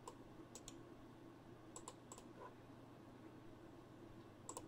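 Faint clicking at a computer, about eight short clicks scattered through, several in quick pairs, over near-silent room tone.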